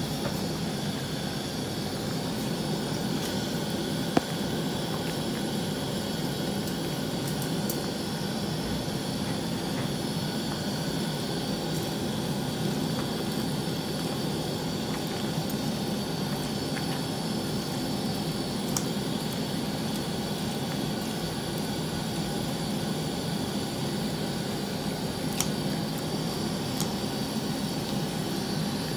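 Steady rushing noise of a pot of soup cooking on a gas stove burner, with a few short clicks.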